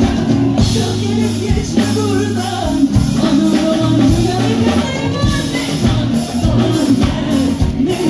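A woman singing a Turkish folk song (türkü) live with a band, drum kit keeping a steady beat under electric guitar, amplified through the stage sound system.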